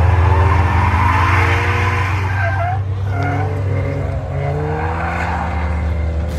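A sports car drifting: its engine revving up and down with the throttle over squealing tyres sliding on the pavement.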